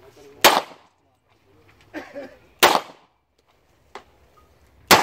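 Three handgun shots about two seconds apart, each a sharp crack with a short echo. A fainter single crack comes just before the last shot.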